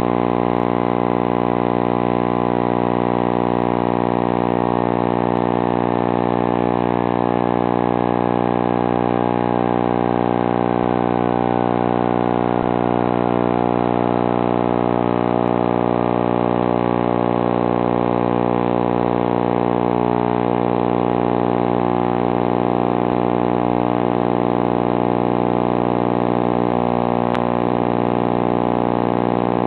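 A steady, unchanging motor drone: one pitched hum that holds the same pitch and loudness throughout.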